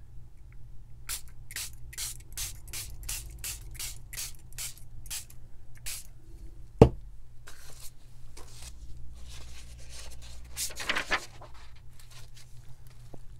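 Plastic trigger spray bottle of coffee-and-tea dye squirted in quick succession, about a dozen short hissing sprays at two or three a second. About seven seconds in comes a single sharp knock, the loudest sound, followed by a few more scattered sprays and one longer hiss.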